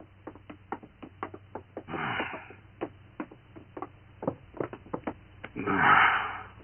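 Footsteps and light knocks of several people moving about and sitting down on a wooden floor, with two longer scraping sounds of chairs being moved, about two seconds in and near the end.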